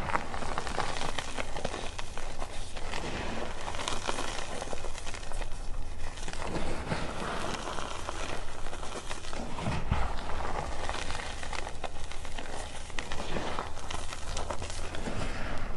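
Reformed gym chalk crunching and crumbling in the hands, with the powder and small lumps sifting through the fingers and pattering back onto the pile, a steady dry crackle.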